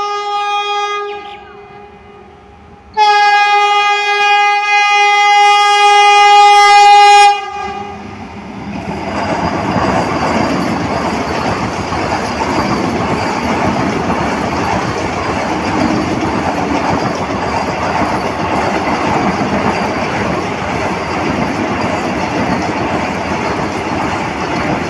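Vande Bharat Express electric train set sounding its horn on the approach: a short blast that drops away about a second in, then a long, loud blast of several seconds. It then passes close by with a steady rumble and clatter of its wheels on the rails.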